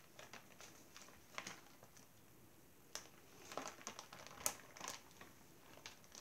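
Gallon zip-top plastic bag crinkling faintly in scattered short rustles as it is held open and handled.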